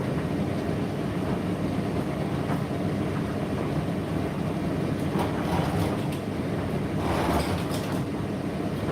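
Indesit IDC8T3 condenser tumble dryer running with a steady low rumble, and a few light clicks and rattles in the second half.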